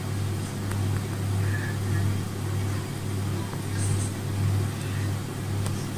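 Steady low engine drone of a helicopter, swelling and easing slightly about once a second.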